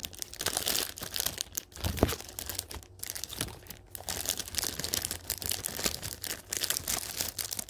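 Paper wrapper of a pack of baseball cards crinkling and crackling as it is handled and torn open, with a soft low bump about two seconds in.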